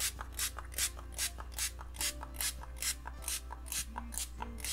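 Small plastic finger-pump spray bottle spritzing a watered-down sealer, pumped in quick short sprays, about three or four a second, each a brief hiss.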